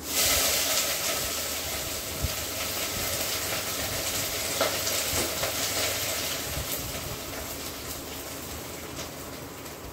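Freshly washed moringa leaves sizzling loudly as they are dropped into hot oil in a steel pot, the hiss starting suddenly and slowly dying down, with a couple of sharp pops. The sizzle is the washing water on the leaves boiling off in the oil.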